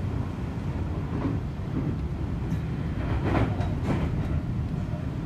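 Seibu 40000-series electric train running, heard from inside the car: a steady rumble of wheels on rail, with a short run of clacks over the rails a little past halfway.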